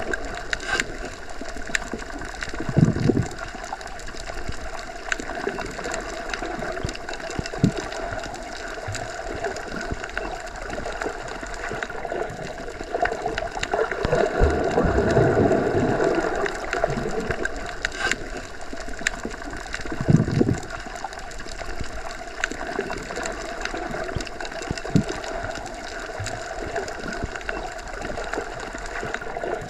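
Underwater ambience: a steady watery hiss full of scattered small clicks and crackles, with low surging swells of moving water about three seconds in, in the middle and again around twenty seconds.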